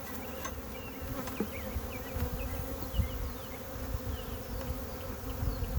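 Honey bees from a freshly opened nuc hive buzzing in a steady, dense hum, many bees flying at once as they pour out of the box.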